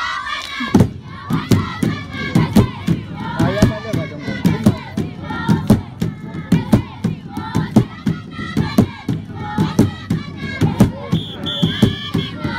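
Zulu song and dance: a group of voices singing and chanting over a steady drum beat of about two to three strokes a second. The drum comes in just under a second in.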